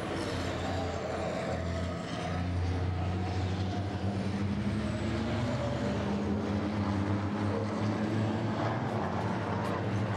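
Racing trucks' big diesel engines running hard through a corner: a deep, steady drone whose note shifts a couple of times as the trucks come through.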